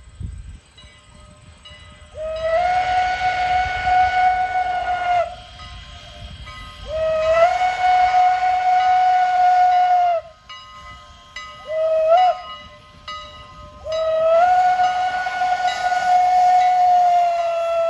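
Strasburg Rail Road No. 89's shrill former Pennsylvania Railroad banshee steam whistle on a 2-6-0 Mogul, blowing the grade-crossing signal: two long blasts, one short, then a long one that is still sounding at the end. Each blast opens with a quick rise in pitch before it settles on one steady shriek.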